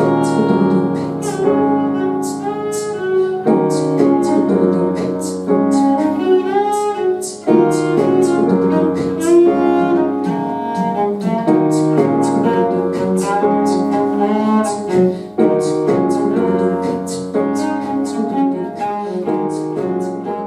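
Instrumental passage of a pop-jazz song on cello and piano, with short high ticks keeping time; it fades slightly near the end.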